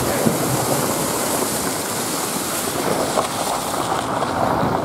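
Car's front tyre ploughing through muddy floodwater on a road, throwing up spray: a steady rushing splash.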